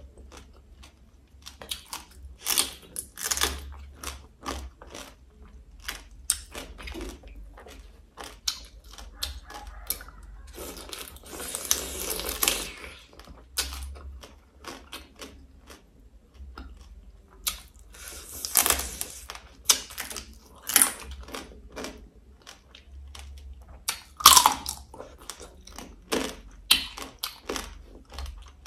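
Braised crab eaten close to the microphone: shells cracking and crunching in many short bursts, with chewing in between.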